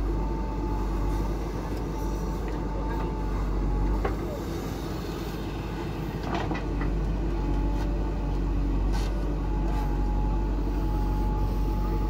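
JCB 3DX backhoe loader's diesel engine running steadily under working load, with a thin high whine that fades about three seconds in and returns near the end. A few short knocks and clatters come in the middle as the rear bucket digs into the soil.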